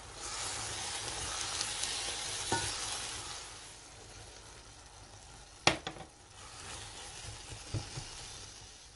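A mushroom-and-walnut filling sizzles in a pot as it is stirred with a wooden spoon. The sizzle is strongest over the first three seconds or so and then dies down. A sharp knock comes about two thirds of the way in, with a couple of lighter taps after it.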